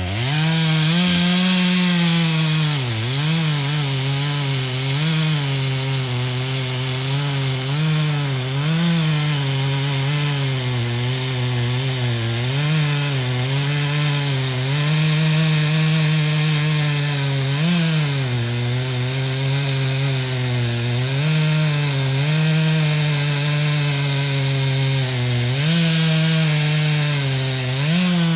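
Two-stroke chainsaw running at high revs and cutting wood, its pitch dipping and recovering again and again as the chain bogs down in the cut.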